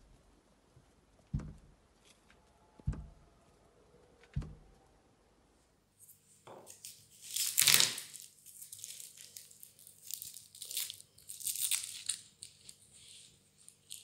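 Three dull knocks about a second and a half apart. Then dry, papery crackling and tearing as garlic bulbs are broken apart and the skins are peeled off the cloves by hand, loudest a little under two seconds after the crackling begins.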